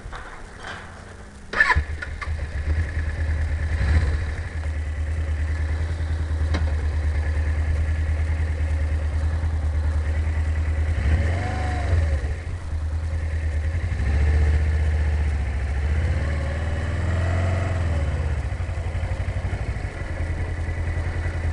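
Motorcycle engine starting up about a second and a half in, then idling steadily, with the throttle blipped twice so the revs rise and fall, heard from inside the rider's helmet.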